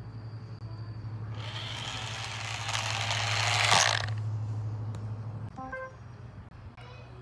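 Battery-powered toy car sounds: a steady low motor hum, with a rush of noise that swells to a peak about four seconds in and cuts off, then a short run of electronic beeps.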